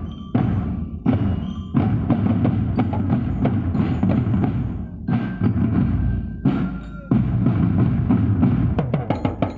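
Marching drum band practising: many marching drums, multi-tenor sets among them, played together in loud, dense phrases, with brief stops between phrases several times.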